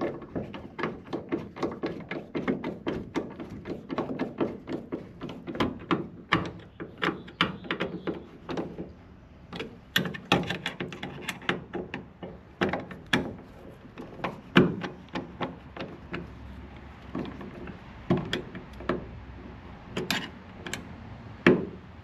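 Screws being driven by hand with a screwdriver into a metal electrical box and cover plate: a long run of irregular clicks and scrapes, dense for about the first twelve seconds, then sparser with a few louder clicks.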